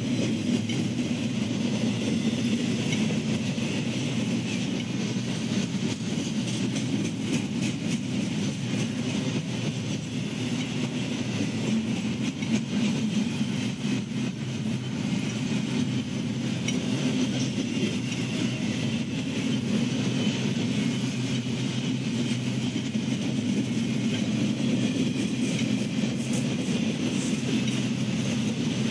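CSX intermodal freight train's cars rolling past steadily, steel wheels rumbling on the rails with scattered clicks.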